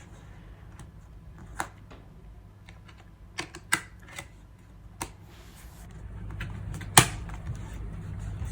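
Scattered sharp clicks and taps as small items from the keyboard box are handled and put down on a desk, the loudest click about seven seconds in, over a low steady hum.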